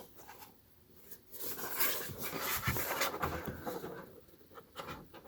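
Rustling and scraping of product packaging being handled, with a few small clicks, loudest from just over a second in until about four seconds in.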